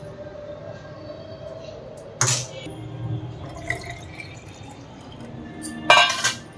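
Hot milk poured from a steel saucepan into a steel bottle, with the metal pan and tongs clinking. There is a sharp clank about two seconds in and a louder metallic clatter near the end as the pan is set down.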